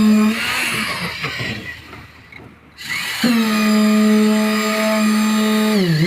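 Concrete pump truck running hard at high revs with a steady whine; the sound fades away about half a second in, returns abruptly about three seconds in, and sags briefly in pitch near the end as if under load.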